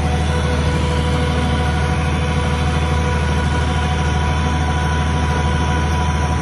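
Engine of an old open-station tractor running steadily under way, a low, even drone with a steady hum above it.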